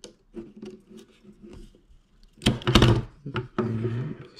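A part of the airsoft gun drops onto a wooden table with a sudden thunk about two and a half seconds in, followed by a brief exclamation. Small clicks of handling the parts and wires come before it.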